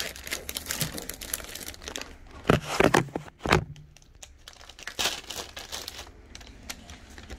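Plastic popsicle wrapper crinkling and crackling as it is handled, with a cluster of louder crackles and bumps about two and a half to three and a half seconds in.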